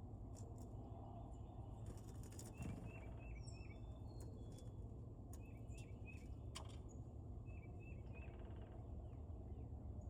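Wild songbird chirping: three quick runs of three short notes each, with a few higher thin whistles early on, over a steady low rumble and scattered faint clicks.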